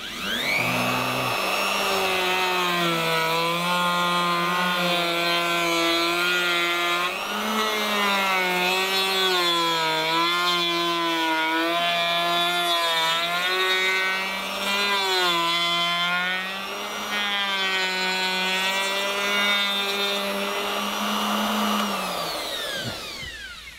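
An old handheld plunge router switched on and whining up to speed, then cutting a radius into an oak board, its pitch dipping and wavering as the bit bites. Near the end it is switched off and winds down, falling in pitch.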